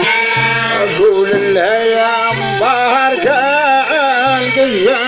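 Middle Eastern folk music: a melody line that slides and wavers between notes over a recurring low note, at a steady level.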